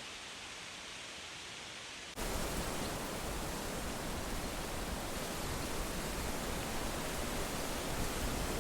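Steady wind rustling through leaves. About two seconds in it turns suddenly louder and brighter.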